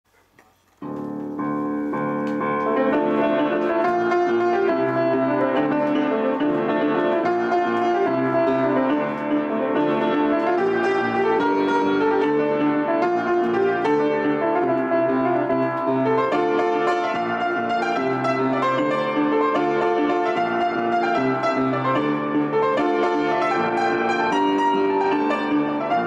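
Upright piano being played with both hands: a melody over a repeating low accompaniment, starting about a second in.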